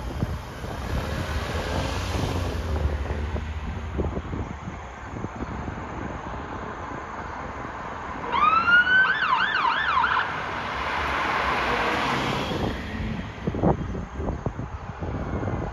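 Fire engine siren heard briefly about halfway through: one rising wail that breaks into quick up-and-down yelps, about three a second. Cars passing close by make road noise near the start and again later.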